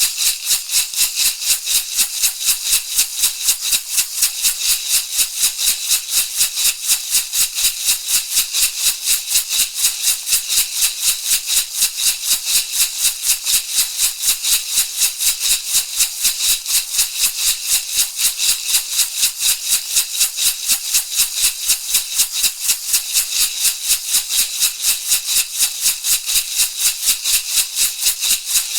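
Shamanic rattle shaken in a steady, even rhythm, each shake a dry crisp rustle of seeds or pebbles.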